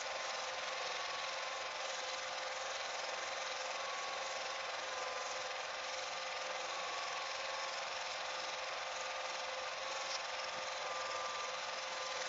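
Home-movie film projector running with a steady, even mechanical whir.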